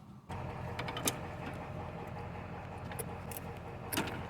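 A handful of light, scattered metallic clinks and clicks from hand tools and metal parts being handled, over a steady low background hum.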